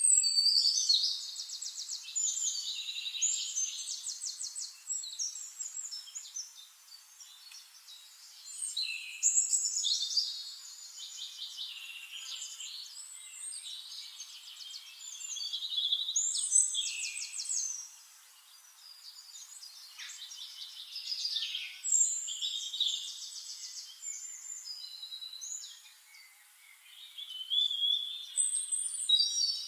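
Small birds chirping and trilling, high-pitched, in loud bouts of a few seconds with quieter spells between.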